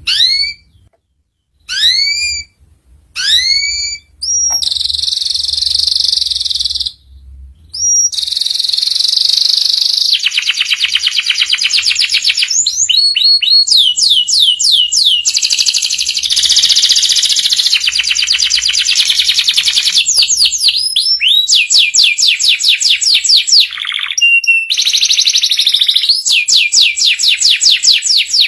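Canary song: three short rising whistled notes, then a long buzzy trill and fast rolling trills made of rapid upward-sweeping notes.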